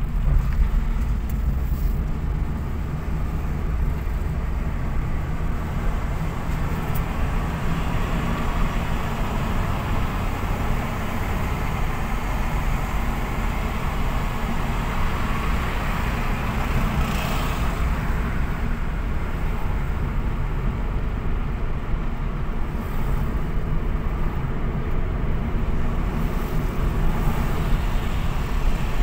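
Steady low rumble of a moving car heard from inside the cabin: road and engine noise while driving along a highway.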